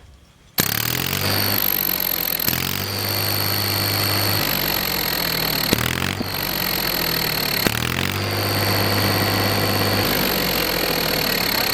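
Tractor diesel engine comes in suddenly about half a second in and keeps running, with a bolt-on exhaust turbo whistle giving a steady high whistle over the engine note. The engine speed shifts a few times, and the whistle sinks slightly near the end.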